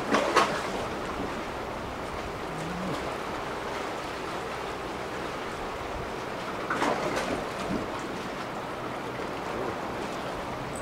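Choppy sea water washing steadily against concrete breakwater blocks, with two louder splashes: one right at the start and one about seven seconds in.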